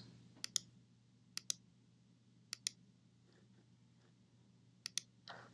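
Computer mouse button clicks: four separate pairs of sharp clicks, the press and release of each click, spread unevenly over a few seconds.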